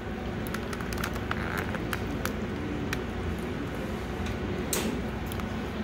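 Boning knife working along the bones of a raw whole chicken: faint scattered clicks with one brief louder scrape near the end, over a steady low background rumble.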